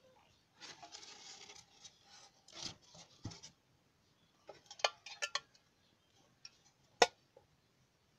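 Handling noise as small steel balls and a can are gathered among dirt and concrete: scraping and rustling, then a run of sharp metallic clicks and clinks about five seconds in, and the loudest single click a couple of seconds later.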